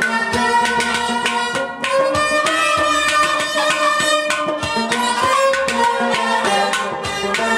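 Instrumental passage of Kashmiri Sufi folk music: a tumbaknari clay pot drum beaten in a steady rhythm of quick strokes under a bowed string instrument playing a gliding melody.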